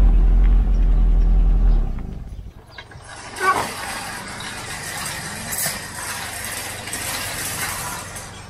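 A car engine running low, cutting out about two seconds in. Then several seconds of metallic rattling and scraping, with a sharp clatter a little after three seconds.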